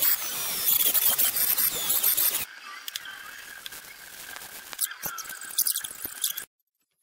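Woodworking sounds on a wooden board: a hissing, squeaky rubbing of wood for about two and a half seconds, then a quieter stretch with a steady high whine and scattered clicks and knocks, cut off suddenly near the end.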